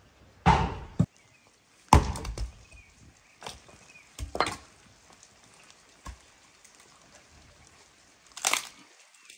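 Axe chopping firewood: several sharp strikes a second or two apart, each with the crack of wood splitting and the clatter of pieces falling.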